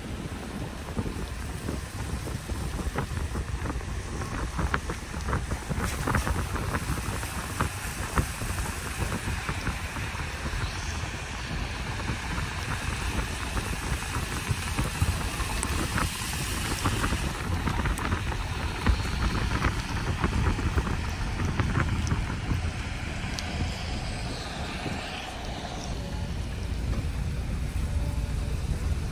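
Steady rain with wind buffeting the microphone in a low rumble, and scattered drops ticking throughout.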